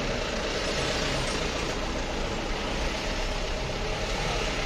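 Steady engine and road noise of a taxi driving along, with a low rumble and no break.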